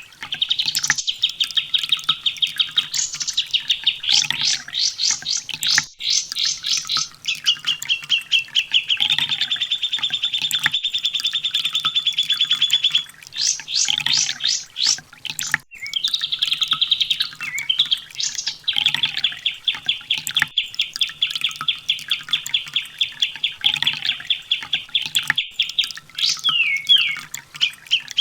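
Olive-backed sunbird (kolibri ninja) singing: long, rapid trills of high repeated notes, several seconds each, broken by quick sweeping chirps. The phrases follow one another almost without pause.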